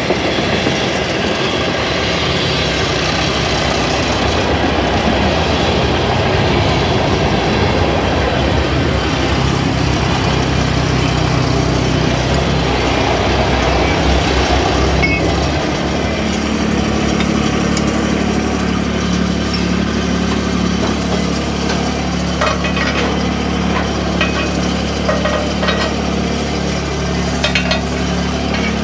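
A train passing close by: a loud, steady rumble and clatter of rail cars. About halfway through, a vehicle engine starts idling steadily underneath it, and a few light clicks and knocks come near the end.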